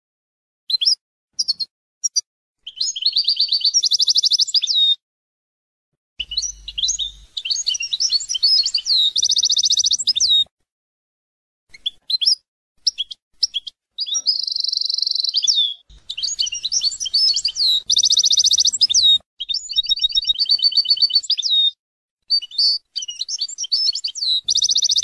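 European goldfinch singing: a run of high, twittering song phrases full of fast buzzy trills, broken several times by short, abrupt silences.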